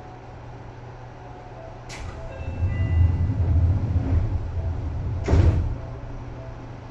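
Sliding doors of a Seibu 2000 series train operating: a sharp click, a low rumble for about three seconds as the panels travel, then a thump as they stop.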